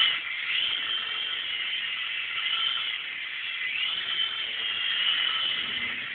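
Small electric motors and rotors of a 3-channel metal RC helicopter spinning, a steady whine that drifts up and down in pitch as the throttle changes.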